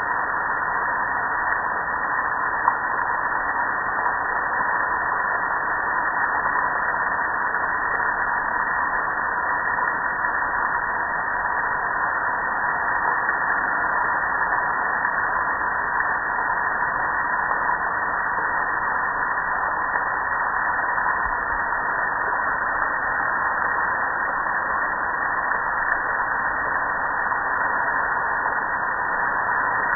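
Steady hiss of water spraying and splashing down over a soapy gas grill.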